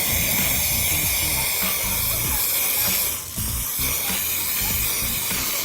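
Aerosol spray-paint can spraying in a steady hiss, with a brief let-up of the nozzle about three seconds in before spraying resumes.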